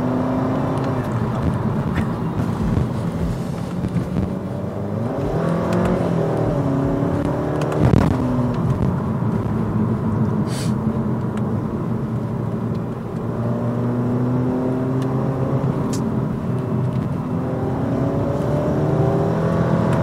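Turbocharged 1.8 TSI four-cylinder of a tuned Skoda Octavia heard from inside the cabin while driving, over road noise. The engine note climbs and drops back several times as the car accelerates and changes gear. There is a sharp click about eight seconds in.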